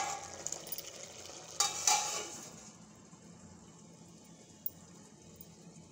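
Steel lid being put back on a steel pot of cooking tomatoes: a sharp metallic clink at the start and a ringing clank about two seconds in, then only a faint steady hiss.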